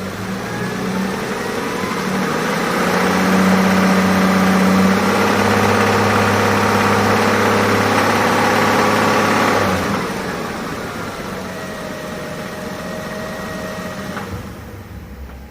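Toyota 1GR-FE 4.0 L V6 running: revved up over a couple of seconds, held at higher revs for about seven seconds, then let drop back to idle. It is the bad-sounding engine that the owner puts down to worn connecting rod bearings and crankshaft.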